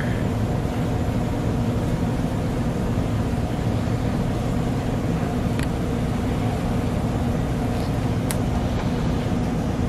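A steady low mechanical hum, like a restaurant kitchen's ventilation or refrigeration machinery, with two light clicks, one about halfway through and one near the end.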